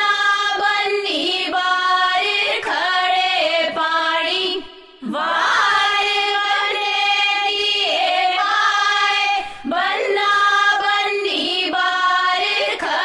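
Background music: a Punjabi doli (bride's farewell) song, with a woman's voice singing long held notes that glide between pitches. The voice breaks briefly about five seconds in and again near the ten-second mark.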